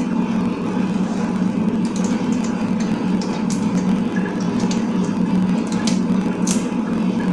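A steady, even hum that runs without change, with a few faint light clicks and taps over it.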